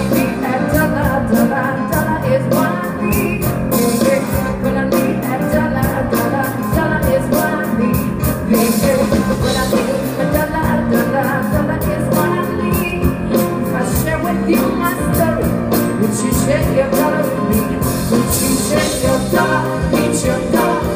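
Live band playing an upbeat rock-style song with a singer, drums keeping a steady beat.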